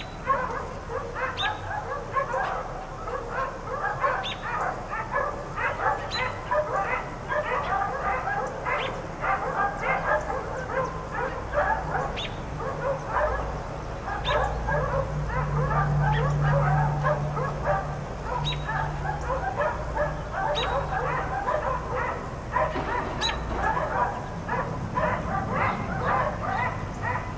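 Four dogs left outside barking nonstop, with rapid, overlapping barks throughout. A low steady hum swells in the middle and fades again.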